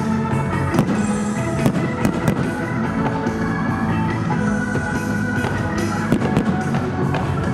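Anime-song music playing loudly over an outdoor fireworks display, with sharp firework bursts banging several times in the first few seconds and again near the end.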